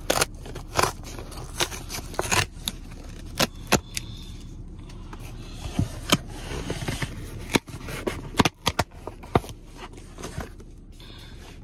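Cardboard shipping box being torn open along its tear strip and handled: an irregular string of sharp crackles, rips and taps.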